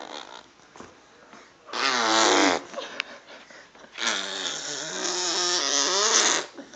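Mouth-made fart noises (blown raspberries), two of them: a short one about two seconds in and a longer, wavering one starting about four seconds in.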